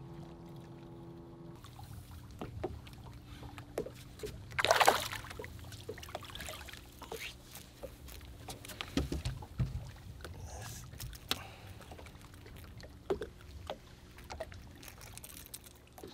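A small smallmouth bass being reeled in and lifted from the water: a loud splash about five seconds in as it thrashes at the surface, then soft thumps and small clicks as it is handled and unhooked, over a low steady hum.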